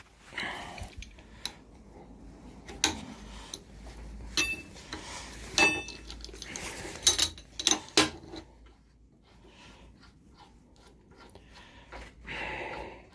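Steel tools and vise parts clanking and clinking: a handful of sharp metallic knocks, a couple of them ringing briefly, between quieter handling noises, while a leg vise's nut and bolt are worked loose.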